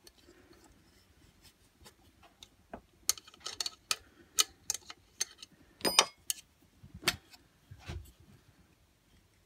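Irregular small metallic clicks and clinks of a feeler gauge and hand tools on the valve rocker of a Honda GX25 engine during a valve-clearance check. They cluster from about three seconds in to about eight seconds in.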